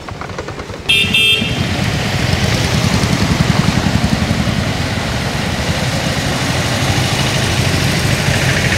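A brief vehicle horn toot about a second in, then motor vehicle engines running as auto-rickshaws and motorcycles drive through a flooded road, their wheels churning and splashing the water in a continuous rushing hiss.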